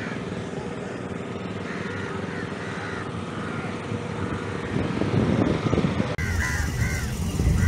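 Outdoor street ambience dominated by a steady low motor hum from an idling vehicle engine, with birds calling in short repeated caws over it. A louder low rumble swells about five seconds in, and just after six seconds the sound cuts abruptly to a louder, closer mix of the same noise.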